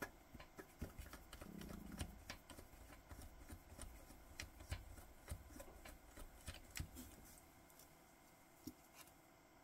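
Faint, scattered small clicks and taps of a stainless steel watch bracelet being handled in a pin-removal tool while a link pin is pushed out.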